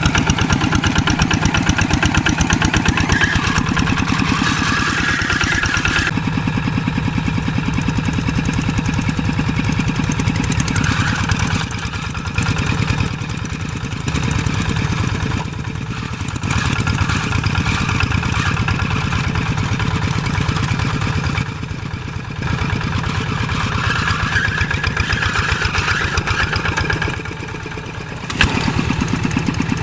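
Old tractor engine running with a rapid, steady firing beat; its loudness dips briefly a few times.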